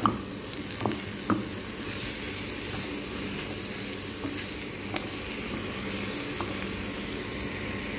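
Sliced button mushrooms, onion and garlic sizzling in a nonstick frying pan, with a few sharp taps of the spatula against the pan, mostly in the first second and a half and twice more later. A faint low steady hum runs underneath.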